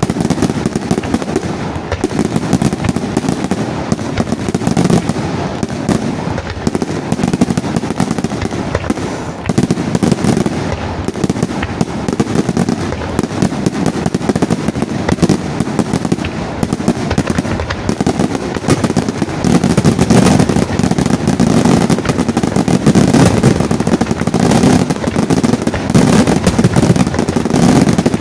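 Fireworks display in a dense, unbroken barrage of aerial shell bursts and crackling. It grows louder about two-thirds of the way through.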